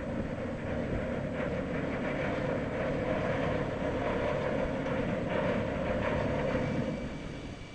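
Large motor yacht's engines and machinery running as it moves slowly past at close range: a steady hum and rush that swells up at the start and fades about seven seconds in.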